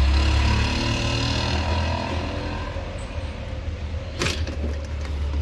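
Low rumble of a motor vehicle engine, its pitch falling over the first couple of seconds and then running on steadily, with one sharp click about four seconds in.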